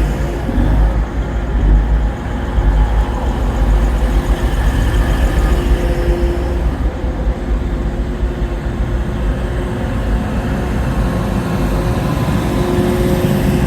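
A vehicle running steadily with a deep low rumble and a few faint steady tones above it.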